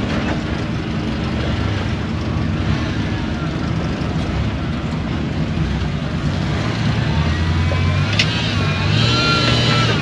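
Rock-crawling rig's engine running, getting louder and revving harder about seven seconds in. High wavering tones ride over it near the end.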